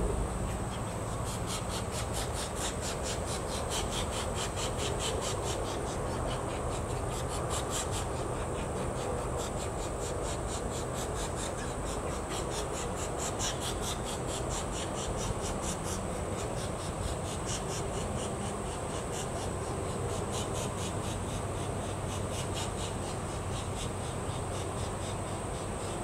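Insects calling: a steady high-pitched buzz with a rapid pulsing chirp over it that comes and goes in runs of a few seconds, above a faint low steady hum.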